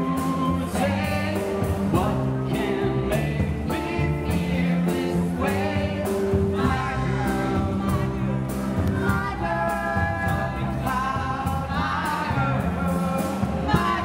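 A live party band playing upbeat dance music with bass and a steady beat, while several women sing along together into a handheld microphone.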